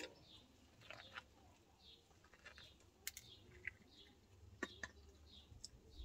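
Near silence with a few soft, scattered clicks of biting and chewing boiled corn on the cob.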